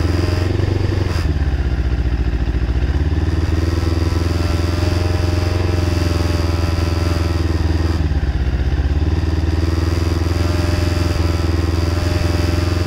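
Zongshen Cyclone RZ3S motorcycle engine running steadily at a held engine speed, with small dips in revs now and then.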